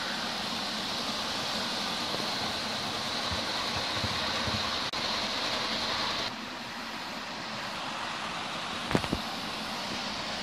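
00 gauge model trains running on track: a steady whirring of motor and wheels that changes abruptly about six seconds in, with a sharp double click near the end.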